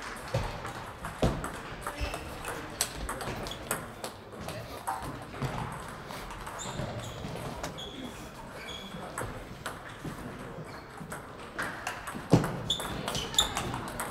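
Table tennis balls clicking off bats and tables in irregular rallies from several tables at once, over a background murmur of voices.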